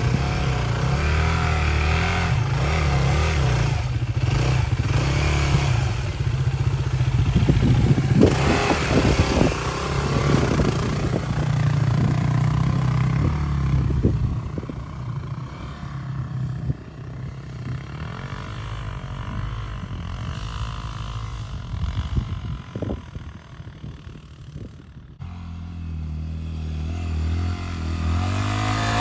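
Yamaha dirt bike engine revving as the bike climbs a snowy dirt track, with clattering around a third of the way in. It fades as the bike pulls away after about halfway, then another bike's engine grows louder as it approaches near the end.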